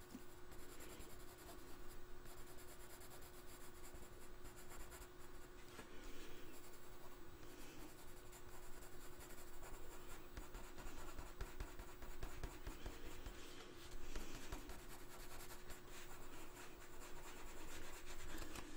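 Coloured pencil shading on drawing paper: faint, continuous scratching of short strokes, with a faint steady hum underneath.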